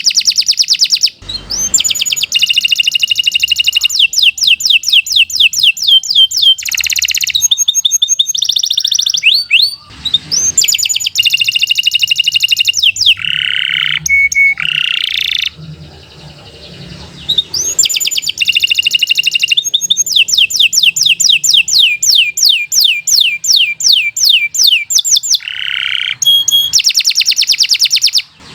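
Domestic canary singing a long, loud song of rapid repeated trills and chattering phrases. There are short breaks about a second in and near the ten-second mark, and a quieter stretch in the middle.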